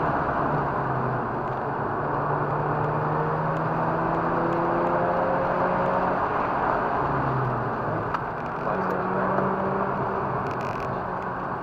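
Mazda RX-8's twin-rotor Wankel rotary engine running hard on a race track, its pitch climbing slowly for several seconds. About seven seconds in the pitch falls, then it climbs again, over heavy wind and road noise.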